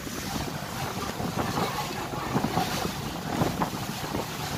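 Wind buffeting the microphone in uneven gusts over the rush of water along the hull of a moving ferry.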